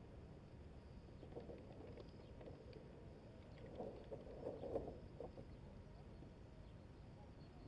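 Faint water lapping and splashing against the hull of a Hobie Adventure Island sailing kayak under way, with a low rumble of wind on the microphone. The splashing grows busier about four to five seconds in.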